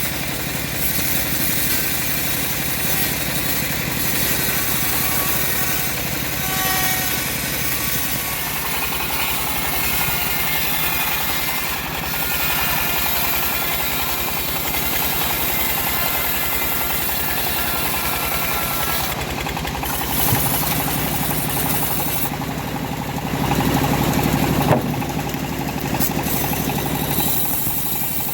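Engine-driven homemade bandsaw sawmill running steadily, with a fast, even engine pulse. The sound gets louder about 23 seconds in, and there is one sharp knock a little later.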